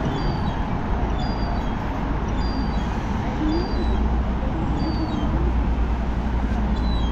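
Road traffic noise at a busy junction, a steady low rumble, with a series of short high chirps roughly once a second and a few brief wavering whines in the middle.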